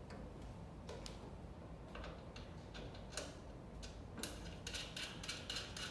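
Scattered light clicks and ticks of hands and a small tool working at the side frame of a DTF printer, coming thicker over the last two seconds.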